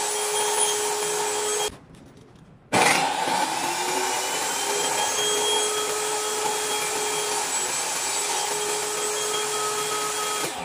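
Table saw running with a steady whine while a crosscut sled feeds a clamped piece of wood through the blade. The sound drops out briefly a couple of seconds in, then comes back suddenly.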